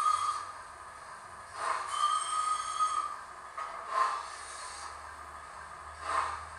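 Steam sound profile of a Hornby W1 'Hush Hush' model locomotive's HM7000 DCC sound decoder, playing three slow exhaust chuffs about two seconds apart through the model's small onboard speaker as it runs at low speed.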